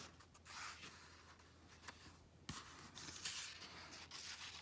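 Faint rustling and brushing of an old comic book's paper pages being handled and turned by hand, with a small tick about two and a half seconds in.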